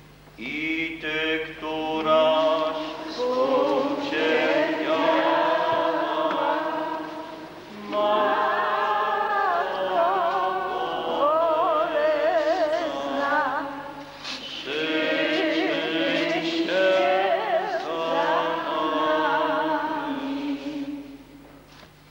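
Congregation singing a slow hymn, in three long phrases with short breaks between them. The voices waver with vibrato and stop about a second before the end.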